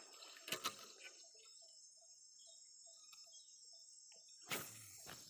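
Faint, steady high-pitched insect chorus. A run of short low chirps comes about three a second in the middle. There are two sharp clicks about half a second in and a louder dull knock near the end.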